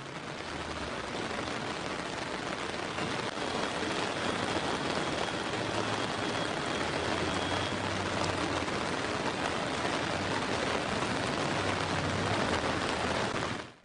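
Heavy monsoon rain pouring steadily onto a flooded street, with a low hum of vehicle engines beneath it. It cuts off suddenly near the end.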